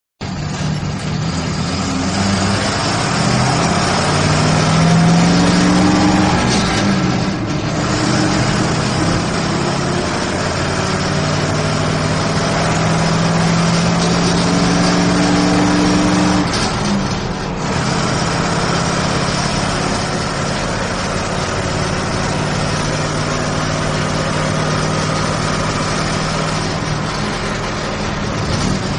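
Bus engine heard from inside the cabin, accelerating. The engine note rises, dips briefly about seven and seventeen seconds in, then holds steady.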